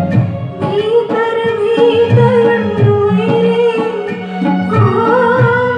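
A woman singing a devotional song into a microphone through a sound system, in long held notes, with tabla accompaniment.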